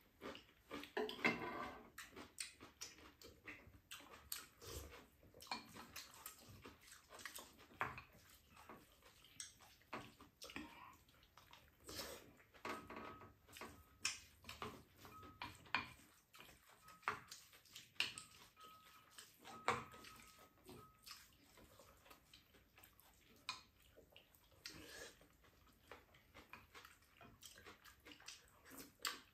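Two people eating at a table: quiet chewing and slurping with chopsticks and a spoon clicking against ceramic bowls, in scattered short sounds.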